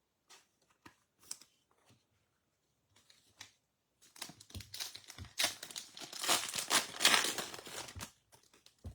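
A few light handling taps, then a baseball card pack's wrapper being torn open and crinkled, starting about four seconds in and lasting about four seconds.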